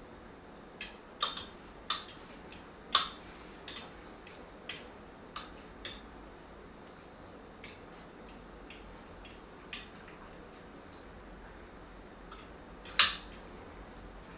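A utensil clinking against a bowl as cooked ground beef is stirred and broken up. The clicks are irregular, come often for about six seconds, then thin out, with one loud clack near the end.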